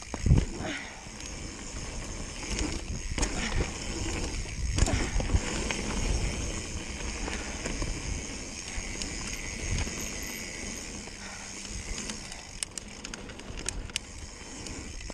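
Mountain bike ridden fast down a dirt trail: steady rumble of the tyres rolling over the ground, with the bike rattling and knocking over the bumps. Loud thumps come about a third of a second in and again around three and five seconds, with a run of small clicks near the end.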